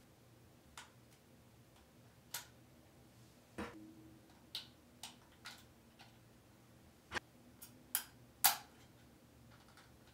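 Light clicks and taps, about a dozen at uneven intervals, from the opened base of an Apple HomePod 2 being turned in the hands and fingered at its circuit board; the loudest comes about eight and a half seconds in.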